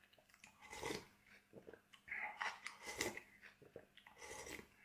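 Faint, irregular chewing and mouth sounds of a person eating close to the microphone, in a few short bouts.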